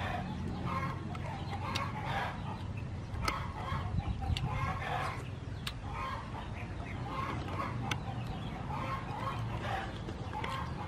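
Chickens clucking in a run of short, repeated calls, with a few sharp clicks and a steady low rumble underneath.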